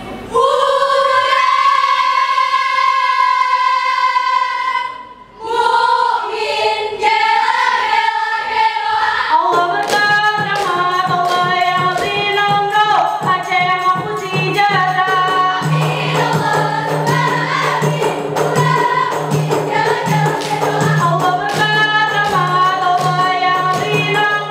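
A group of female voices sings a Ratoh Jaroe song in unison. It opens on one long held note, breaks briefly just after five seconds, then sings on. From about ten seconds in, fast claps and slaps come in under the singing.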